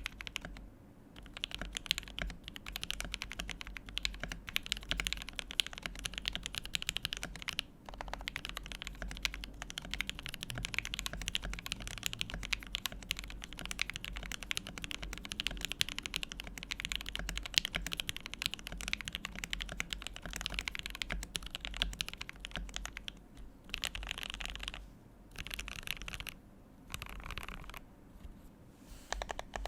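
Continuous fast typing on a Tofu 65 custom mechanical keyboard with an aluminium plate, linear Banana Split switches lubed with 205g0 and filmed, and Durock v2 stabilisers. The keystrokes run as a dense stream of clicks, with a brief pause about eight seconds in and a few short pauses near the end.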